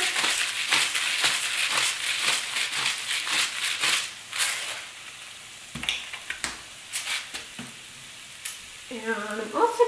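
Skillet of jackfruit, onion and garlic sizzling, with the dense crunching of a hand-twisted spice grinder over the pan for the first four seconds or so. After that it goes quieter, with only scattered clicks.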